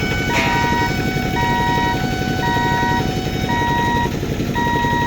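Level-crossing warning beeper sounding in regular half-second beeps about once a second over the steady rumble of a passing train. A steadier tone under it cuts off about three and a half seconds in.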